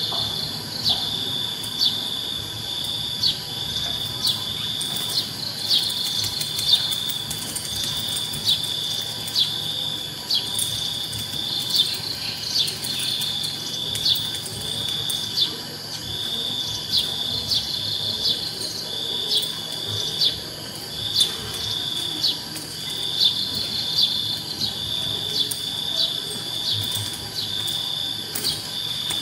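A steady high-pitched trill like an insect's, broken by brief gaps, with short sharp ticks about once a second.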